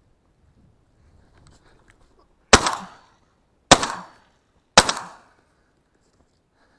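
Three shotgun shots about a second apart, each a sharp crack with a short echoing tail, fired at flushing ducks.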